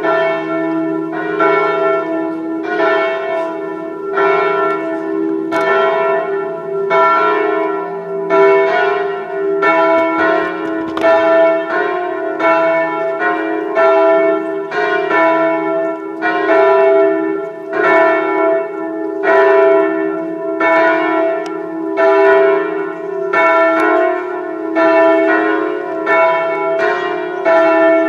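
Church tower bells ringing for a funeral: several bells strike in a steady run about once every three quarters of a second, their notes ringing on between strikes.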